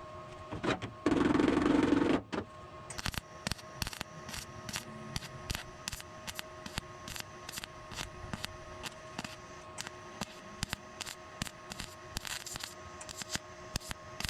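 A loud burst of noise lasting about a second, shortly after the start, then a long run of light, sharp taps at an irregular two to three a second, from work on the Beetle's windshield-frame sheet metal.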